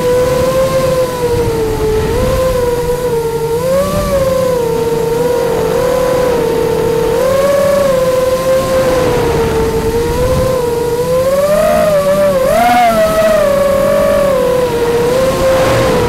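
FPV quadcopter's electric motors and propellers whining, the pitch wavering up and down with throttle and climbing highest about three quarters of the way through. Heard from the camera on the drone itself, with a rough low rumble underneath.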